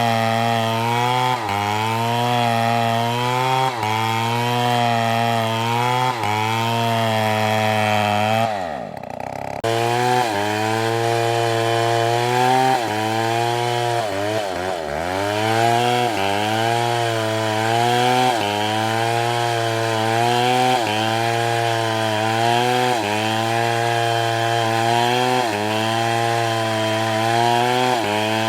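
STIHL chainsaw cutting into a palm trunk under load, its engine pitch sagging and recovering about every two seconds as the chain bites. About nine seconds in, the revs plunge almost to idle, then climb back up, and there is a smaller dip a few seconds later.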